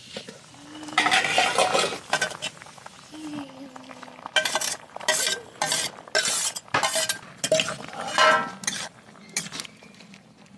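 Steel cookware clattering: a steel lid comes off a kadai with clinks, then a steel spatula scrapes chopped spinach off a steel plate in a run of quick strokes, with clinks against the pan rims, and stirs it into the curry.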